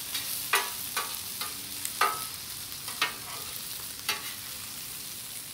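Diced potatoes sizzling in oil on a flat-top griddle while a metal spatula stirs them, scraping and clicking on the steel surface in a series of sharp strokes, the loudest about two seconds in.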